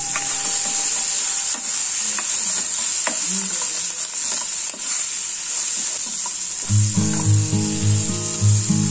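Onion, capsicum, tomato and cashew nuts sizzling in hot oil in a non-stick frying pan as they are stirred with a spatula, with a few light clicks. Background music comes in near the end.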